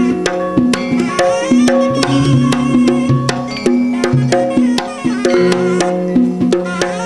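Traditional East Javanese kuda kencak (dancing-horse) music: quick hand-drum strokes over sustained pitched tones and a wavering melody line, played steadily throughout.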